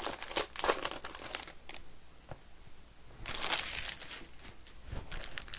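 Crinkling and rustling of trading card pack wrappers being handled, in irregular short bursts with a longer crinkle a little past the middle.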